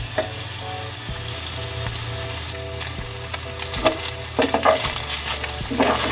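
Sliced pork belly frying in a dry stainless pan without oil, its fat starting to render, while a spoon stirs and scrapes it around the pan. The scraping strokes grow louder from about four seconds in.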